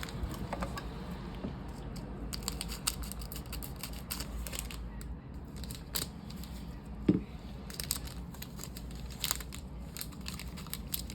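A trading card booster pack being opened by hand: the wrapper crinkles and tears in scattered short rustles. One louder dull thump comes about seven seconds in.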